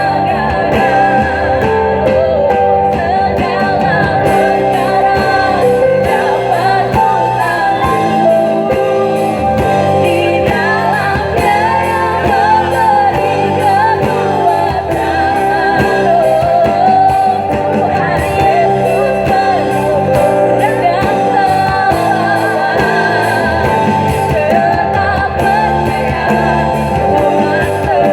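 A praise and worship band playing a song with a lead singer, drums and guitar, in a steady rock beat.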